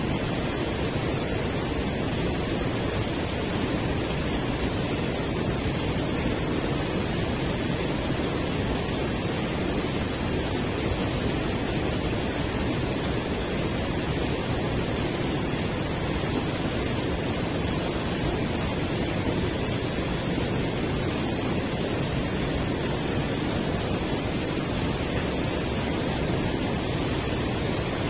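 River water rushing steadily over a low concrete weir, an even, unbroken rush of water.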